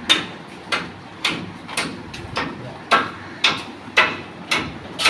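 A steady run of sharp knocks, about two a second, from a mason's trowel striking bricks as a brick wall is laid.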